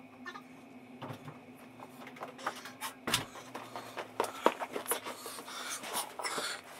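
Sped-up sound of engine oil dripping from the drained sump of a BMW S1000R into a plastic drain pan: a run of quick clicks and taps over a low steady hum, with one stronger knock about halfway through.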